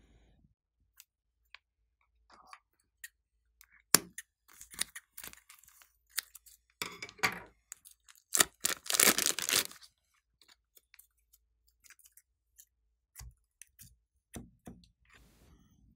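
Sticky blue slime being squeezed out of a plastic piping bag and kneaded by hand: crackling, rustling and squishing, with scattered clicks. It is busiest and loudest about seven to ten seconds in.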